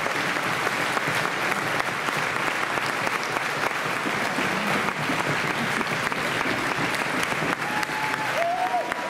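Concert hall audience applauding steadily, with a few brief pitched calls near the end.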